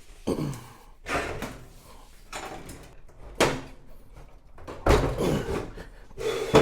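Welded steel locomotive floor sheet being flipped over and set down on a motorcycle lift: a run of clanks, scrapes and thuds, the heaviest thud about five seconds in.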